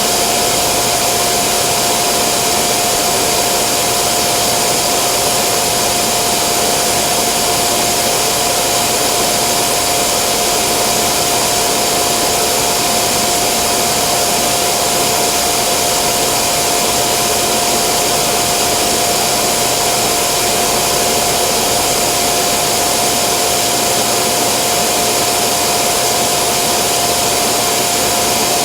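Steady, unbroken whooshing noise with a constant mid-pitched whine, like a running hair dryer.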